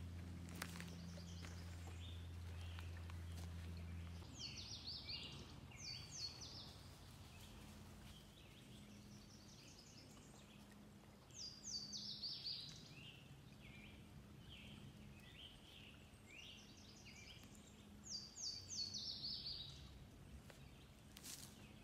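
A songbird singing three short phrases of quick descending chirps, about seven seconds apart. A low steady hum stops about four seconds in.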